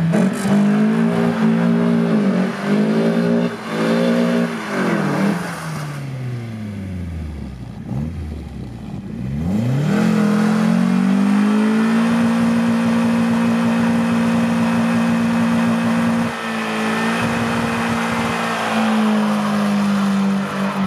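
Nissan SR20DE two-litre four-cylinder in a VAZ-2101 revving in several sharp blips, falling away and quieter for a few seconds as the car drives off, then revved back up and held at steady high revs, with a brief dip partway, while the rear tyres spin in a burnout with a steady hiss.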